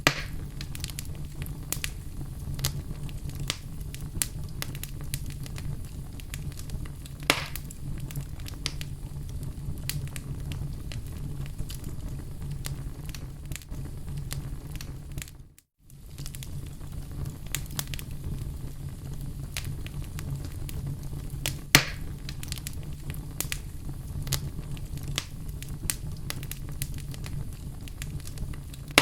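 Fireplace fire crackling, with frequent small pops and two louder pops, over a steady low hum. The sound cuts out for a moment about halfway.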